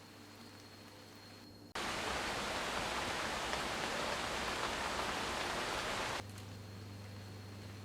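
A steady, even rush of water that cuts in abruptly about two seconds in and stops just as abruptly about four and a half seconds later.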